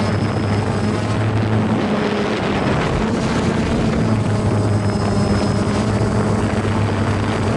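Small remote-controlled drone's propellers buzzing steadily as it flies low, the hum wavering slightly in pitch as it manoeuvres.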